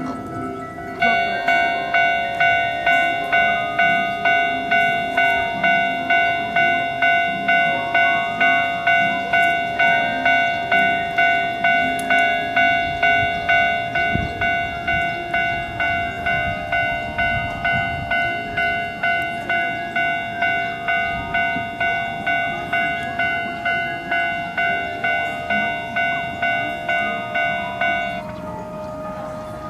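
Japanese railway level-crossing warning bell ringing, a sharp metallic-toned ding repeated about twice a second. It starts about a second in and cuts off shortly before the end.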